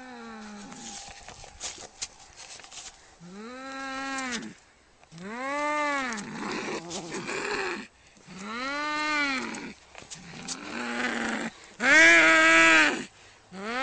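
An angry cat yowling: a series of drawn-out calls about a second long each, every one rising and then falling in pitch, with breathy noise between some of them.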